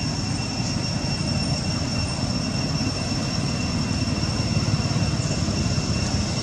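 Steady outdoor background noise: a constant low rumble with a thin, unchanging high-pitched whine above it.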